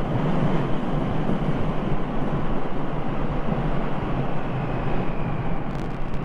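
Triumph Thruxton R's 1200 cc parallel-twin engine running steadily under way, mixed with constant wind rush over the microphone.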